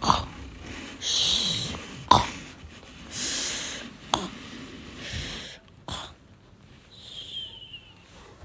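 Play-acted snoring: four rounds, about two seconds apart, each a short sharp intake followed by a longer hissy breath out, the last exhale whistling downward in pitch.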